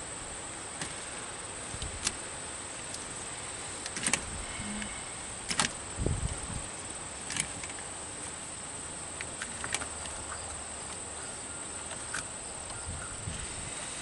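Scattered light clicks and knocks of hands and tools working on a battery cable, over a steady high-pitched hiss.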